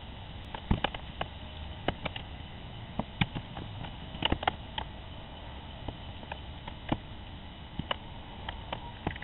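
Raccoon clambering over PVC roost bars and plastic nest boxes: scattered, irregular clicks and knocks of claws and feet on plastic, over the steady hiss of a security camera's microphone.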